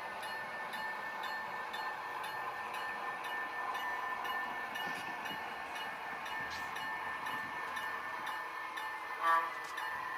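Model train locomotive running slowly on the layout, a steady whine-like engine sound with faint regular ticking, and one short toot a little past nine seconds in.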